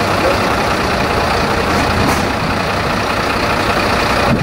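Six-cylinder diesel engine of a MAN LE 14.250 fire engine idling steadily, loud and close.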